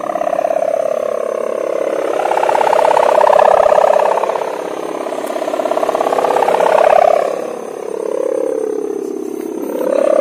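Sowangan kite hummer, a bow strung with a vibrating ribbon above the kite, droning in the wind. It is a loud, wavering, siren-like hum that swells and fades several times, loudest at about three to four seconds and again near seven seconds in.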